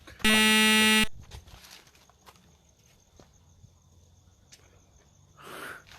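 A harsh electronic buzzer tone, low and steady in pitch, sounds for just under a second, starting and cutting off abruptly. A brief soft rushing noise follows near the end.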